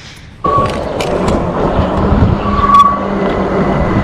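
ENGWE Engine Pro e-bike in motion: a steady hum with road and wind noise starts about half a second in. Two short high squeals from the noisy rear hydraulic brake come early and again near the end.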